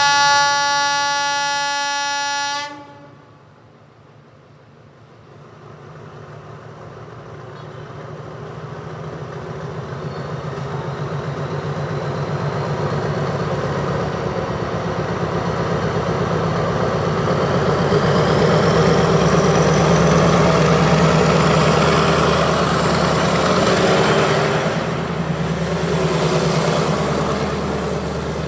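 Horn of an Alsthom AD24C diesel-electric locomotive sounds one long blast of about two and a half seconds, cutting off suddenly. Then its MTU 16V4000 V16 diesel engine builds up under power as the train departs, with a rising whine above the engine note, loudest about twenty seconds in and easing off near the end.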